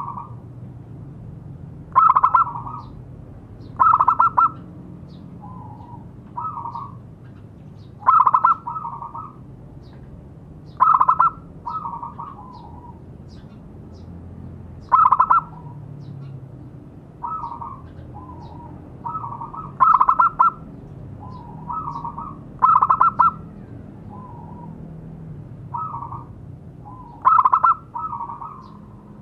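Zebra dove (perkutut) cooing: short, repeated coo phrases every two or three seconds, loud ones alternating with softer ones.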